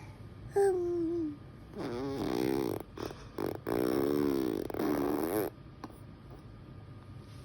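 A seven-month-old baby making funny vocal noises: a short falling squeal under a second in, then two longer wavering cooing sounds whose pitch bends up and down, about two and four seconds in.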